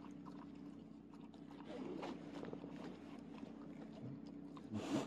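A dog lapping water from a small plastic cup, a run of small wet clicks, over a steady low hum. A short, louder burst of noise from the dog's mouth or nose comes near the end.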